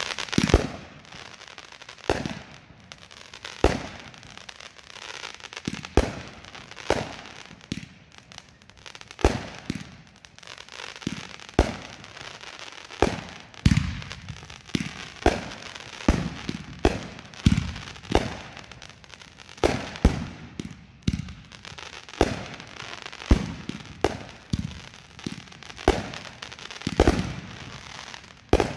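Aerial fireworks going off in quick succession: sharp bangs of launches and bursts roughly every second, each with a short echo, with crackling between them.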